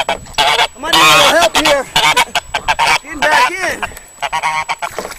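Domestic goose honking loudly at close range: a rapid run of harsh calls with a short break in the middle, easing off near the end. The goose is agitated, going after a man in the water beside a kayak.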